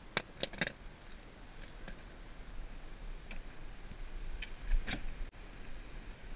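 Small metal clicks and clinks of a hand tool being picked out of a plastic tackle box, three close together at the start and a few more after, then a vehicle door shutting with a louder thump about five seconds in.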